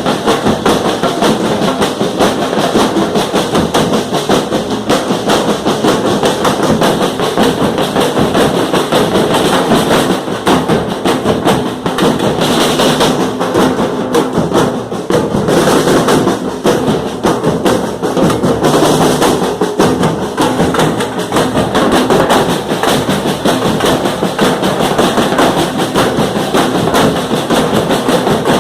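Loud, continuous drumming: percussion music played at a fast, steady beat.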